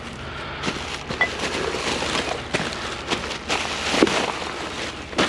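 Rustling plastic bags and cassettes clicking and clattering as they are handled, with a sharper knock about four seconds in.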